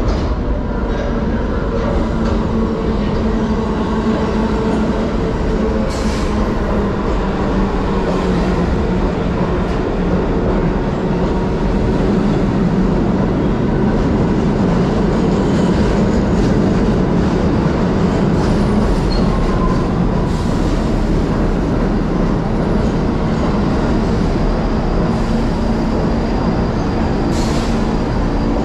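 New York City subway train running steadily on the rails: a loud continuous rumble with a faint steady whine over it and a few sharp clicks.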